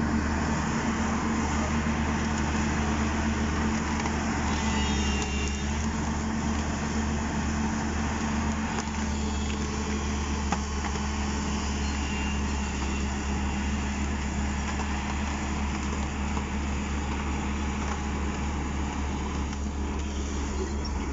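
Diesel engine of a hydraulic excavator running steadily at close range, a constant low drone, with a bulldozer working nearby.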